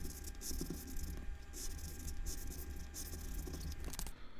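Scratch-off lottery ticket being scratched with a scratching tool: repeated scraping strokes over a steady low hum, cutting off suddenly near the end.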